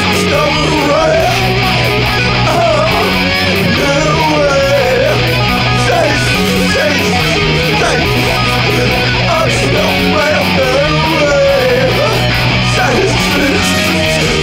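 Instrumental rock music: distorted electric guitars over a bass line that changes note every couple of seconds, with a wavering lead line on top.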